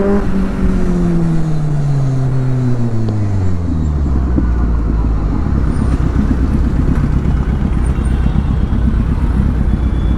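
Kawasaki Z800's inline-four engine and exhaust on the move: the revs fall steadily from a peak over about three and a half seconds as the throttle is rolled off, then settle into a low, uneven rumble.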